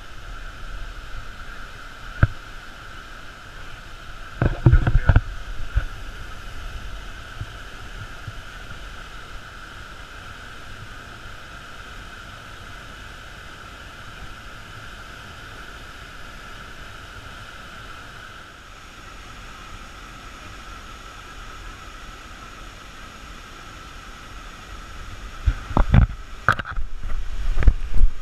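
Steady rushing roar of a large waterfall. Low bumps of wind on the microphone come a few seconds in and again near the end.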